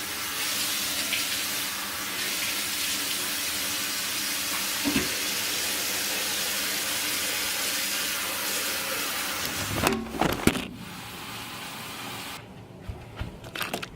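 A steady rushing noise with a few knocks about ten seconds in; after them it is quieter and cuts off shortly before the end.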